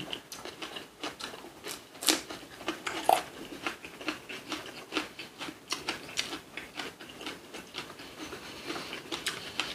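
Close-up eating sounds: chewing a wrap of raw yellowtail in napa cabbage with ssamjang, heard as an irregular run of small crisp clicks and crunches. The two loudest come about two and three seconds in.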